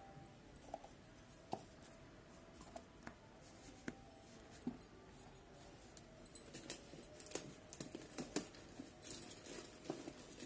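Faint handling sounds of a plastic baby feeding bottle and a handbag: scattered small clicks and taps, getting busier about six seconds in as the bottle goes into the bag.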